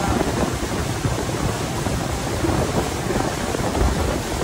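Steady rush of a speedboat under way on open water: wind buffeting the microphone with a low rumble, over the hiss of water along the hull.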